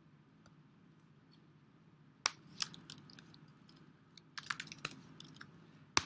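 Computer keyboard and mouse: a sharp click about two seconds in, a run of quick keystrokes typing a short word past the middle, and another sharp mouse click at the end.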